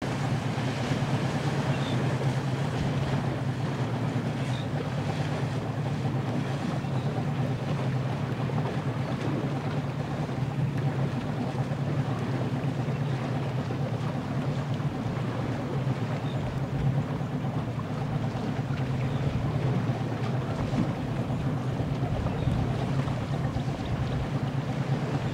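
Boat motor running steadily with a low hum, mixed with water noise and wind on the microphone.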